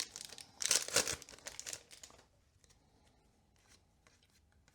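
A foil Yu-Gi-Oh booster pack wrapper being torn open and crinkled, loudest about a second in and stopping after about two seconds, followed by faint light ticks of handling.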